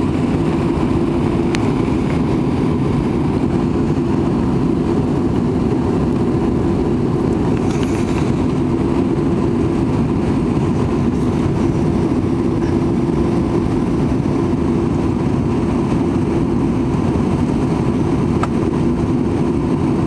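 Cabin noise of an Airbus A319 on approach, heard from a window seat over the wing: a steady low roar of the jet engines and rushing air, with an even hum.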